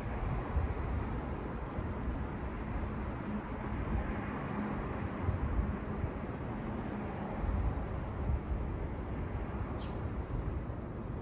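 Outdoor ambience: wind gusting on the microphone over a steady low rumble, with one brief faint high chirp about ten seconds in.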